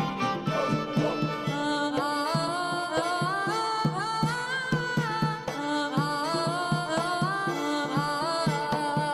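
Background music: a melody that slides up and down in pitch over a steady, evenly spaced drum beat.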